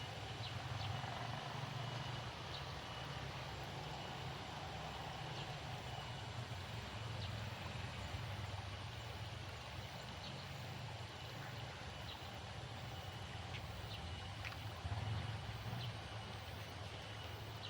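Steady outdoor ambience: a low, even rumble with faint, scattered high chirps.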